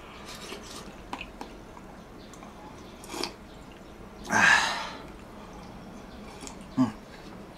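A person eating miso soup: faint clicks of chewing and tableware, and one loud breathy mouth sound lasting about half a second, about four and a half seconds in.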